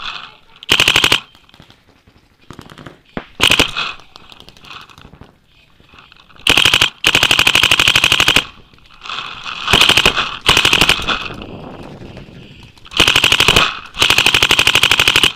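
Paintball markers firing rapid strings of shots: about eight bursts, the longest lasting over a second, with scattered quieter shots between them.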